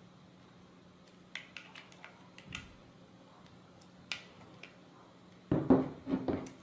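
Light clicks and taps of a small screwdriver against the bolts and plastic plates of a robot-car chassis. Near the end come louder knocks and scraping as the chassis is turned onto its side on the table.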